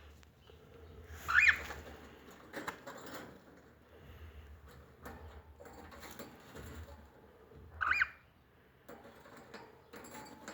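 Cockatiel giving two short, loud chirping calls about six seconds apart, each a quick upward-then-downward sweep in pitch. Light clicks and rustling come between them.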